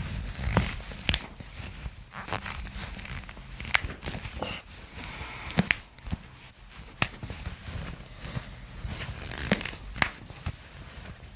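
Rubbing and handling noise with about ten scattered sharp clicks and pops, from a chiropractor manipulating the toes and ankles.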